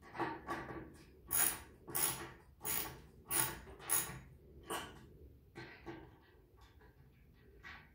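Ratchet wrench tightening bolts on a wooden platform frame: a run of about five quick ratcheting strokes, roughly one every two-thirds of a second, then softer, scattered clicks for the last few seconds.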